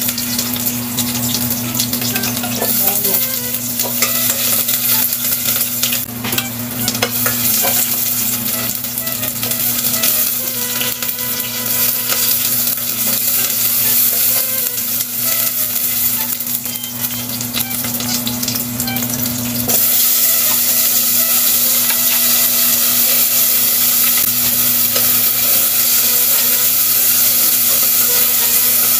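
Onion sizzling as it sautés in a stainless steel pot while a spoon stirs it, with crackling and small clicks of the spoon against the pot. About two-thirds of the way through, the sizzle turns into a louder, steadier hiss.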